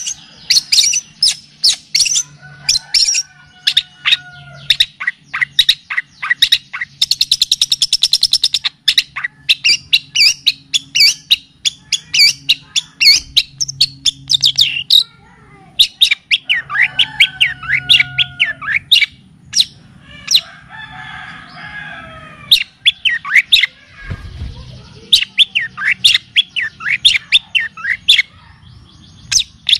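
Songbird song from a birdsong training recording of kapas tembak and cililin: rapid runs of sharp, high chirps, several a second, broken by short pauses. Around a quarter of the way in there is a fast buzzing trill. A faint steady low hum runs underneath.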